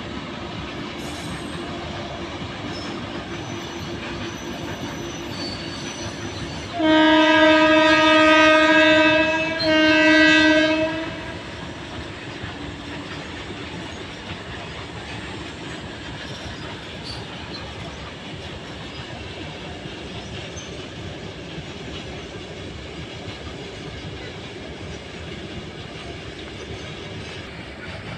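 Indian Railways electric freight locomotive sounding its horn twice, a long blast of about two and a half seconds and a shorter one right after, on one steady pitch. Underneath runs the steady rolling noise of a long loaded goods train passing.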